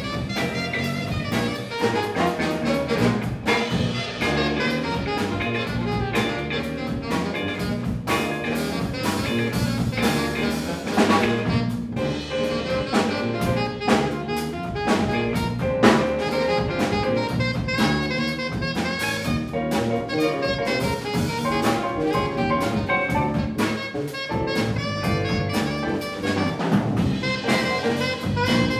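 Live jazz ensemble playing a funk-jazz tune: saxophones and horns over drum kit, electric bass, electric guitar and piano, with a steady beat.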